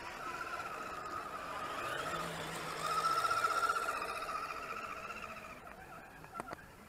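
Radio-controlled scale crawler trucks' electric motors and gears whining, the pitch wavering with the throttle; loudest around the middle and dying away toward the end, with a brief knock near the end.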